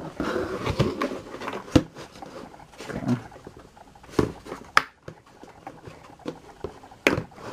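Hard plastic tool case handled on a wooden table: a string of sharp knocks and clicks as it is turned, set down and its latches worked, with scraping and rubbing in between. The strongest click comes just after 7 s in.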